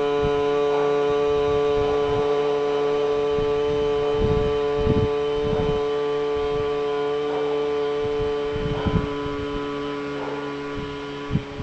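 A man's long humming chant held on one steady pitch, slowly getting quieter and stopping just before the end.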